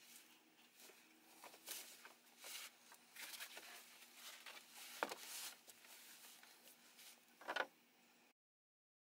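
Engine oil draining in a thin stream from the drain-plug hole into a plastic drain pan: a faint trickle with a few soft knocks, cutting off suddenly about eight seconds in.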